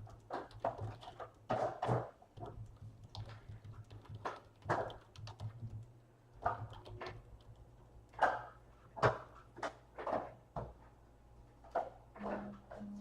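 Trading cards and their packs being handled: irregular soft taps, slides and rustles, over a steady low hum.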